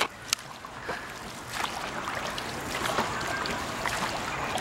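Dragon boat paddles dipping and pulling through the water, a steady wash of water noise with scattered clicks and knocks.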